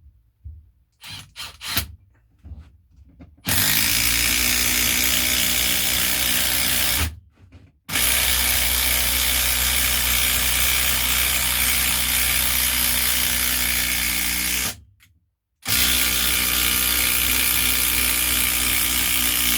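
Brushless cordless impact driver hammering a large coach screw into pre-drilled, waxed oak, in three long runs with two short pauses. It struggles as the screw goes deep. A few light handling clicks come before it starts.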